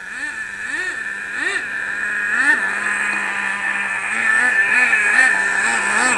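Force .15 nitro engine of an RC sprint car running in short throttle blips. Its pitch rises and falls over a steady low note, with a few larger blips first and then a run of smaller, quicker ones. The engine is on light throttle during break-in.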